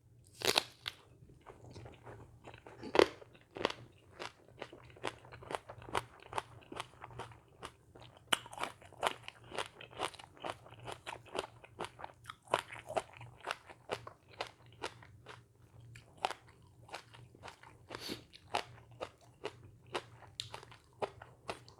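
A person chewing crunchy food with the mouth, a run of crisp crunches coming about two to three times a second.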